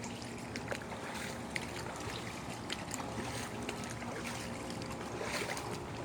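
Floodwater faintly sloshing and trickling around legs wading through it, with many small scattered splashes and drips.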